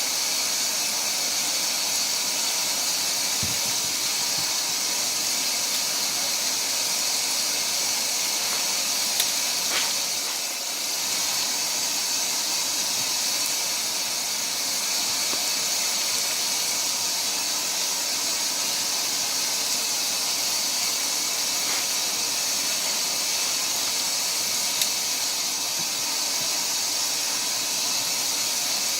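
Steady hiss of water rushing into a washing machine, unchanging throughout, with a few faint clicks.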